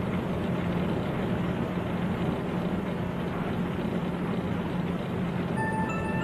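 Steady low rumble and hum of coin-laundry dryers running. A few high chiming music notes begin near the end.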